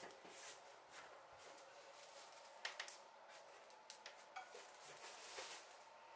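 Faint handling sounds of small objects: soft swishing strokes and a few light clicks, the loudest a quick pair a little before three seconds in, over a faint steady hum.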